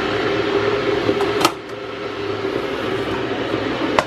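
Steady whirring of a kitchen appliance running, with a constant low hum and a sharp click right at the end.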